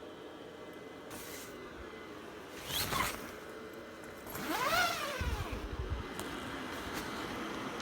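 Steady whir of a portable clothes dryer's fan heater running. About three seconds in and again about five seconds in there are two brief louder sounds that sweep in pitch.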